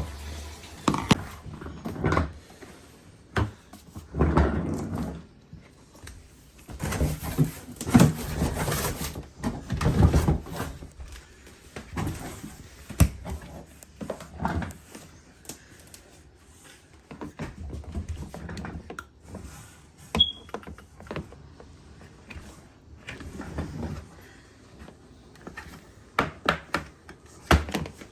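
Irregular clicks, knocks and thunks of hard plastic shop-vacuum parts being handled and fitted together, with short stretches of rustling and scraping between them.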